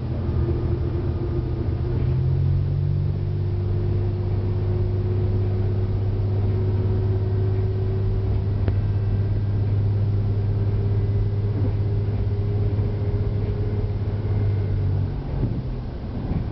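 Diesel engine of a KTR001-series diesel railcar running under steady power, heard from behind the cab, with the rumble of the wheels on the rails. A fainter tone climbs slowly as the train gathers speed. About fifteen seconds in, the engine note drops away.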